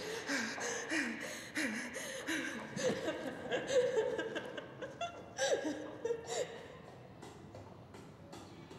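A woman sobbing: short, wavering, falling cries broken by gasping breaths, dying down to quieter weeping in the last few seconds.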